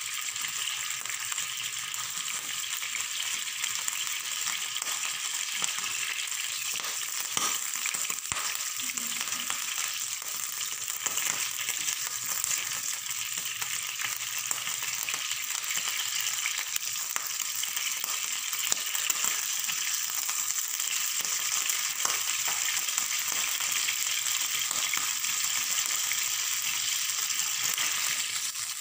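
Marinated beef tapa frying in hot oil in a skillet: a steady sizzle with scattered crackling pops.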